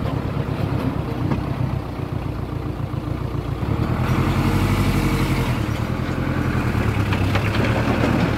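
Dump truck's diesel engine running with its bed raised to tip soil. It gets louder about four seconds in and stays up.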